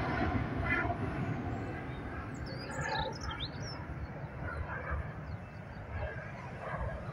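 Boeing 777-200ER's jet engines rumbling at takeoff power, slowly fading as the airliner climbs away. A bird chirps a quick run of sliding notes about three seconds in.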